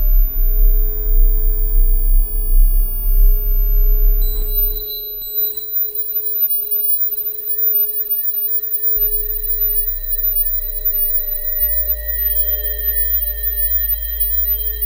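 Electronic drone of steady pure sine-like tones held over a deep rumble. The rumble drops away about five seconds in as a higher tone joins, more high tones come in later, and a low hum returns in the second half.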